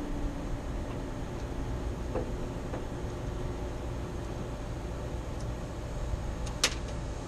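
Steady low rumble with a few faint ticks and one sharp click near the end, as wiring is handled inside a rooftop HVAC unit.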